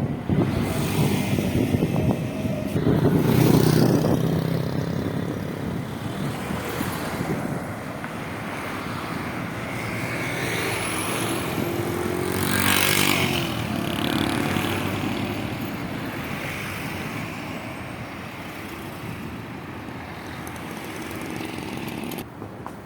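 Motor vehicles passing on the road, the engine sound swelling and falling away about three seconds in and again, more sharply, around twelve to thirteen seconds, over steady wind rushing across the microphone of a moving bicycle.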